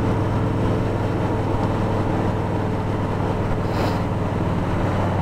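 Kawasaki Voyager 1700's V-twin engine running steadily at cruise, with steady wind and road noise, as heard while riding the motorcycle. A short hiss comes in about four seconds in.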